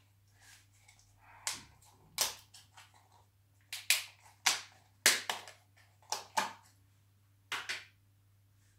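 Plastic mascarpone tub being pried open by hand: a string of sharp plastic clicks and crackles, about a dozen in irregular clusters, as the stiff lid and seal resist.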